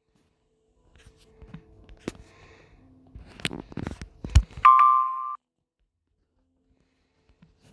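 A jumble of clicks, knocks and brief tones with one heavy thump, then a short burst of a steady alert tone near 1 kHz from a weather radio that cuts off suddenly.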